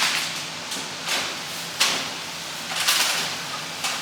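Plastic grocery bag rustling and crinkling in about five short bursts as groceries are handled and put away.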